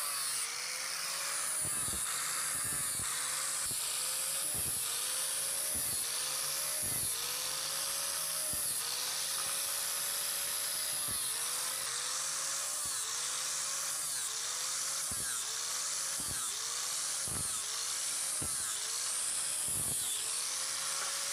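Electric angle grinder with an abrasive disc cutting short curved grooves into a wooden cricket bat blade: a steady high whine whose pitch sags briefly and recovers roughly once a second as the disc bites into the wood.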